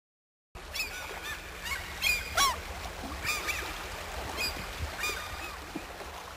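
A flock of birds calling, with many short rising and falling chirps and whistles overlapping, over a steady low background rumble. It starts abruptly about half a second in.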